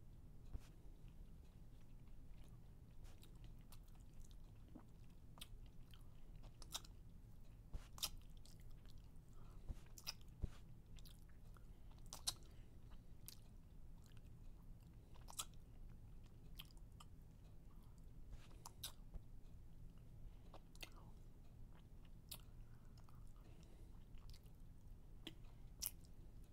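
Near silence: a low steady hum with faint, sharp clicks scattered irregularly, roughly one every second or two.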